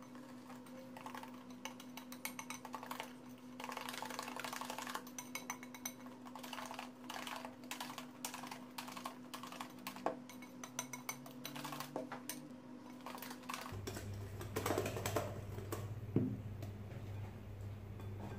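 Wire whisk beating a thick chocolate semolina batter in a glass bowl: rapid, uneven clicking and scraping of the wires against the glass.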